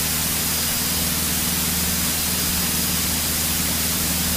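Single-engine light airplane in flight, heard from inside the cabin: a steady engine and propeller drone under a constant rush of airflow noise.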